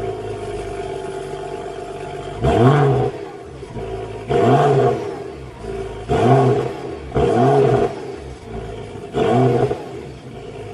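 BMW E93 335i's engine idling and revved five times in short blips of about a second each, the pitch rising and falling with every blip. The owner presents this revving as showing a turbo whine at 2,000–3,000 rpm, the sign of a failing turbo.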